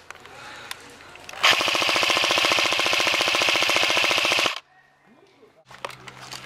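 Airsoft M60 machine gun firing one continuous full-auto burst of about three seconds, a rapid, even rattle that cuts off abruptly.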